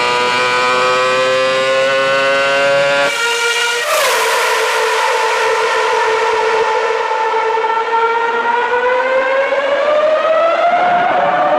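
Formula One car engine running at high revs, a high-pitched note that climbs slowly, breaks off abruptly about three seconds in, then comes back, drops and climbs slowly again.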